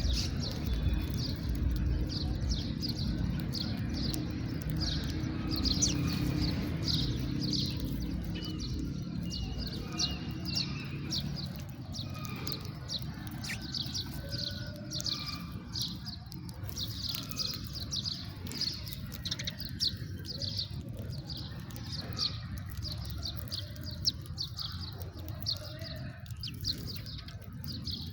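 House sparrows chirping over and over, several short chirps a second without a break. A low rumble sits under them for the first dozen seconds, then fades.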